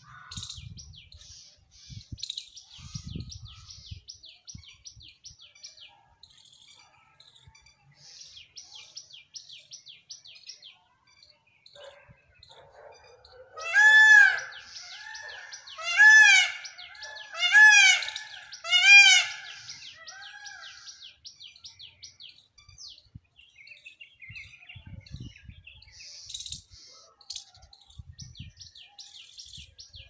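Indian peacock calling four times in quick succession about halfway through, each a loud arched wail with fainter calls trailing after. High, rapid chirping from small birds runs underneath.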